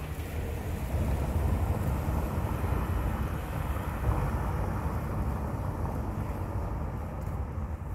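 Low, steady rumble of wind buffeting the microphone, with a van driving slowly across a cobbled square.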